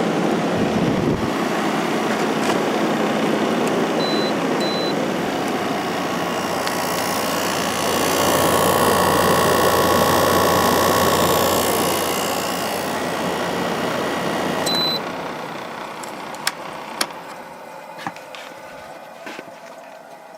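Midea 8,000 BTU window air conditioner running on high fan with its GMCC compressor on: a steady rush of air over a hum. Short high beeps come twice about 4 s in and once near 15 s, after which the unit's sound dies away gradually, with a few light clicks.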